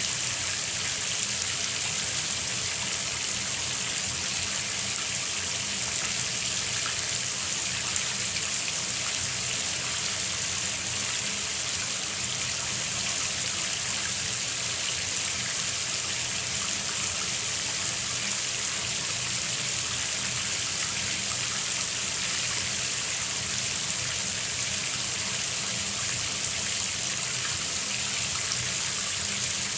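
Shower running: a steady, even hiss of water spray.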